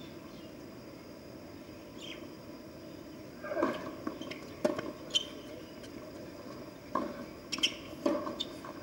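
Tennis ball struck by rackets and bouncing on a hard court: a serve about three and a half seconds in, then a rally of sharp pops, over a faint steady background.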